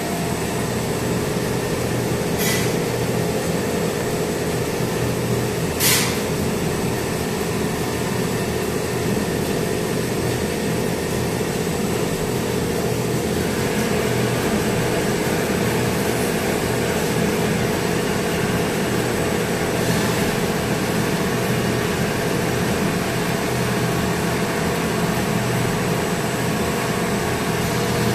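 Steady mechanical hum of workshop machinery running, with a few constant tones in it, and two sharp clicks within the first six seconds.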